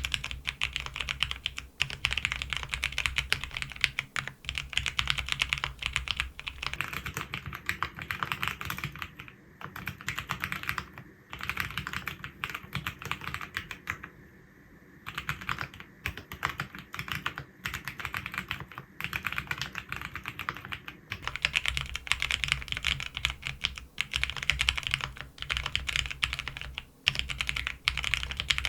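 Continuous typing on a custom mechanical keyboard with lubed Cherry MX Vintage Brown tactile switches in a PC half plate: a dense run of key clicks, with a brief pause about halfway through.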